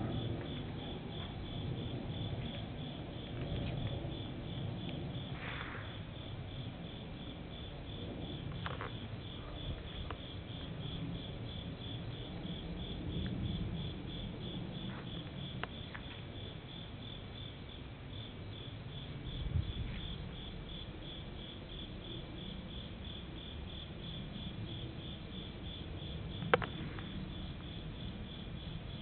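Night insects chirping in a steady, even pulse of high chirps, about three a second, over a low rumble. A single sharp click comes near the end.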